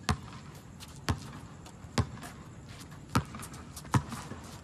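Basketball dribbled on a hard court: five sharp bounces, about one a second.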